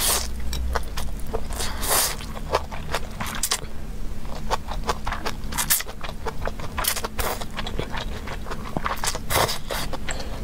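Close-miked eating sounds of noodles being slurped and chewed: a dense, irregular run of wet smacks and short clicks.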